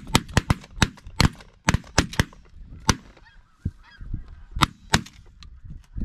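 Shotgun volley from several hunters firing at once on a flock of snow geese: about a dozen shots packed into the first three seconds, then a few more scattered shots later. Snow goose calls sound between the shots.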